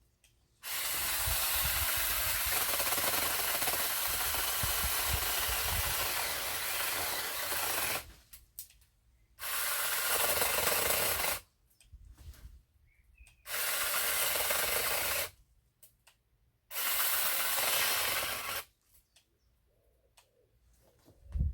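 Small 15 cm cordless chainsaw cutting wood in four bursts that start and stop abruptly: one about seven seconds long, then three of about two seconds each.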